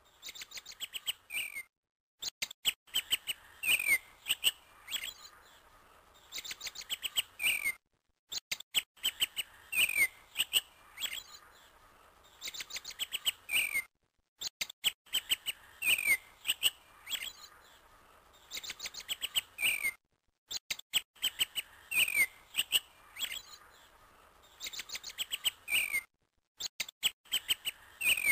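Looped recording of birds chirping: the same stretch of about six seconds of quick chirps and short whistled glides repeats over and over, with a brief silent gap between repeats.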